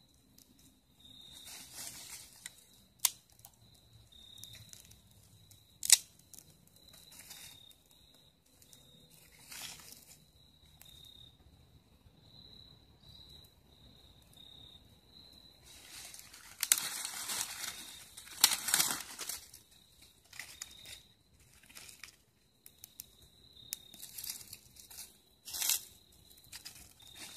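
Dry leaves, twigs and tinder rustling and crumpling as a small fire is fed by hand, with a few sharp snaps and a louder stretch of rustling about two-thirds of the way through.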